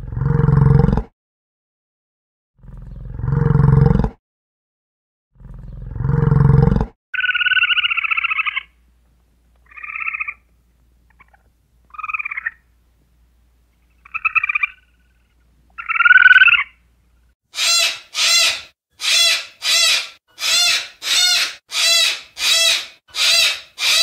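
Animal calls in three runs: three deep roars, each swelling over about a second and a half; then five shorter, higher-pitched calls a couple of seconds apart; then a quick run of about eleven sharp, shrill calls, roughly three every two seconds.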